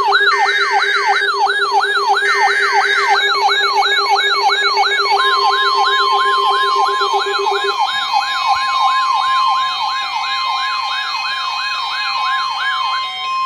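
Electronic yelp siren sweeping up and down about three times a second, mixed with the Emergency Alert System's data header: three short buzzy bursts in the first three seconds. From about five seconds in, a steady weather-radio warning alarm tone joins. The siren stops shortly before the end while the tone holds.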